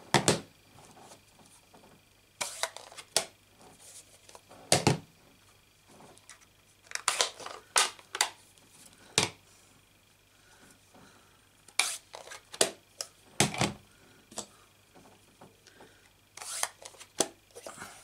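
Plastic ink pad cases being closed and set down: a series of separate sharp clicks and knocks, scattered irregularly, with short pauses between them.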